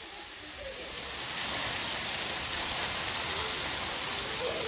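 Steady rush of falling or splashing water, fading in over about the first second and then holding even.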